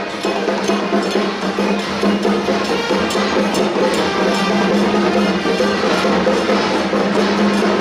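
Temple procession music: a steady droning tone under dense percussion, with clacking woodblock-like strikes and metallic beats.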